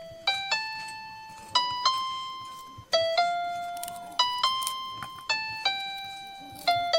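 Background music: a slow melody of single notes on a piano-like keyboard instrument, each note starting sharply and ringing away before the next.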